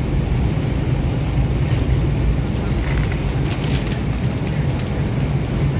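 Subway train running through a tunnel: a steady low rumble of wheels on rails, with a run of sharp clicks and knocks from the wheels over the track between about one and five seconds in.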